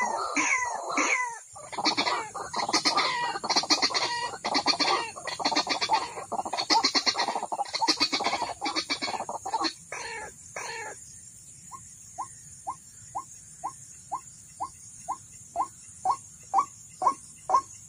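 White-breasted waterhen calls: a dense run of harsh, repeated croaking calls for about the first eleven seconds, then a steady series of short single notes about two a second, louder towards the end.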